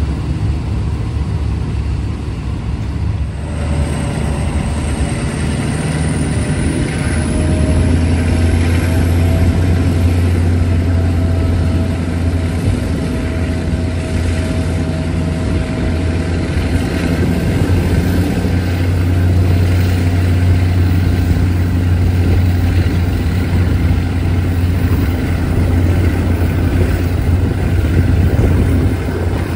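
A diesel-hauled passenger train running, heard from an open carriage doorway: a steady low rumble of engine and wheels on the rails with wind rush, growing a little louder after the first few seconds.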